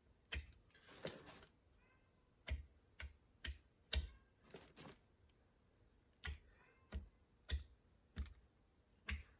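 Light, irregular tapping and scraping of a hand tool working quick-setting plastic repair filler onto a steering wheel, about a dozen small taps spaced roughly half a second to a second apart, with brief scrapes about a second in and near the middle.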